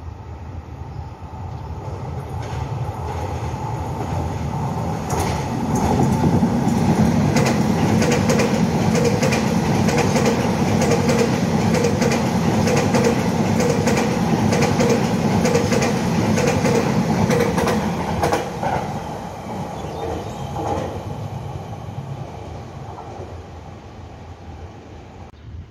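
A Taiwan Railway electric multiple-unit train runs through the station at speed. Its rumble builds up, stays loud for about twelve seconds with the wheels clacking steadily over the rail joints, then fades away as the train passes.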